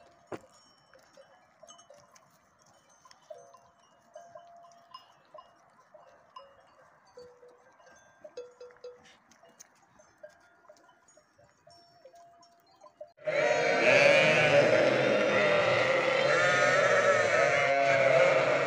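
Faint clinking of sheep bells as a flock grazes. About two-thirds of the way through it gives way abruptly to a loud, dense chorus of many sheep bleating at once.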